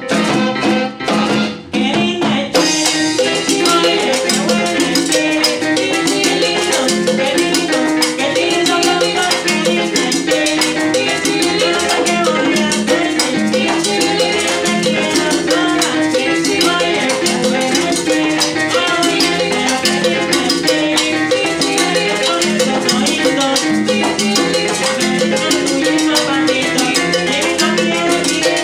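Live salsa band playing, with congas, bongos, drum kit and horns: a few sharp band hits in the first two seconds, then the full rhythmic groove carries on steadily.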